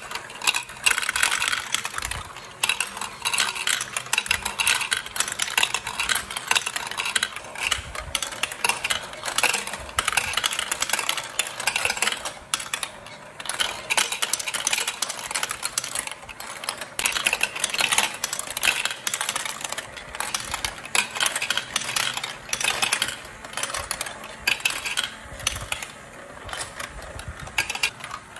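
Hollow plastic balls clicking and rattling as they roll along plastic marble-run tracks, spin around a funnel and are carried up clear spiral-screw elevator towers. The clatter is dense and irregular, made of many small overlapping clicks.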